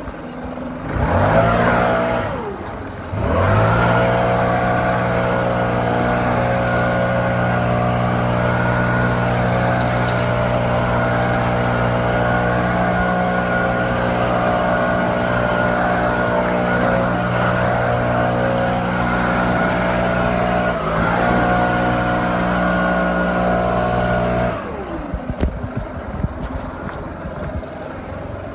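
STIHL BR700 two-stroke gas backpack leaf blower running. In the first few seconds the throttle is let off and brought back up twice, with the engine note dropping and climbing. It then holds steady at high throttle, dips briefly once, and falls to a lower, quieter speed for the last few seconds.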